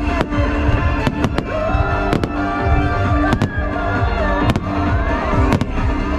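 Fireworks bursting overhead: about ten sharp bangs at uneven intervals, some in quick pairs, over loud pop music playing throughout.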